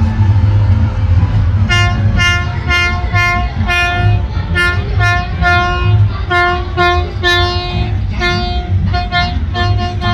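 A horn tooting one note over and over, about two short blasts a second with a few held longer, starting about two seconds in, over a steady low rumble.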